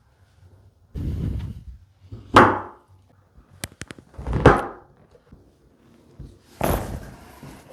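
Chiropractic Y-axis traction adjustment (Ring Dinger) on a treatment table: a series of dull thumps and shuffling as the body is pulled and shifted, with a quick run of three or four sharp clicks about halfway through.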